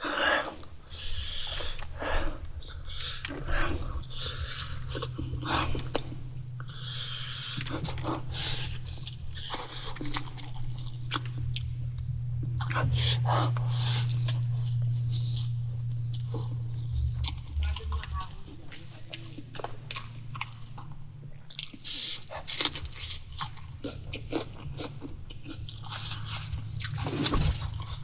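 A person chewing and biting mouthfuls of food close to the microphone, with many short irregular clicks and smacks. A steady low hum runs underneath and is loudest around the middle.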